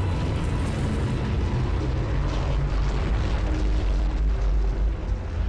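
A steady deep rumble of soundtrack sound effects under dark music.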